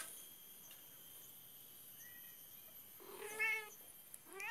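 A young kitten meowing twice near the end, two short high-pitched calls a little over a second apart.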